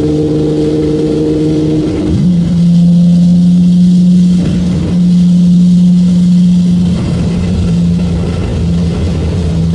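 Infiniti G35 coupe's VQ35DE V6 droning at high revs under a highway pull, heard from inside the cabin. About two seconds in the pitch steps up and it gets louder, with two short dips later on.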